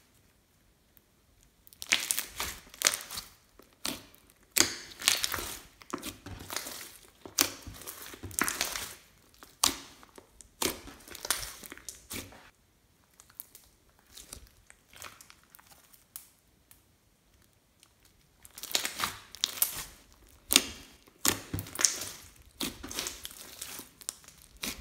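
Hands squeezing and kneading glossy slime mixed with floam beads, giving irregular bursts of squishing and sharp crackles. The sound stops for about six seconds in the middle, then starts again.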